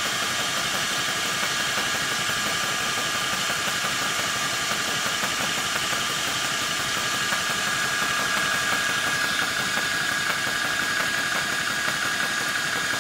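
Apolo portable high-pressure (300 bar) PCP air compressor running steadily under load, pumping an air rifle up toward 300 bar, with the cooling fan of its built-in power supply running. A steady high tone sits over the machine noise.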